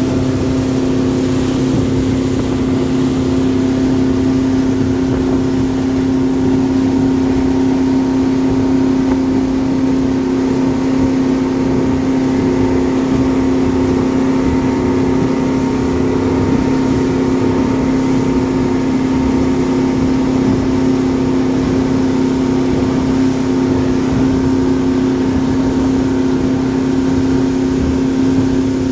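Motorboat engine running at a steady cruising speed, one unchanging drone, over the hiss and rush of the wake.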